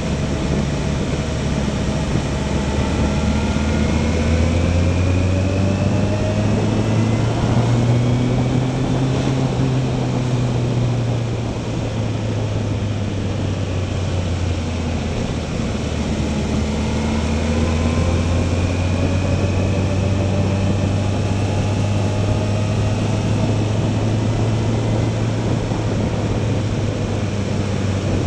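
Motorcycle engine running under load on an uphill ride, with steady wind and road noise over it. The engine pitch rises as it pulls, drops back about eleven seconds in as it eases off for a bend, then climbs again.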